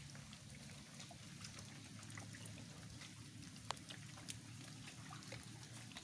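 Faint scattered clicks and small watery trickling sounds from a wet mangrove mudflat, with one sharper click a little under four seconds in.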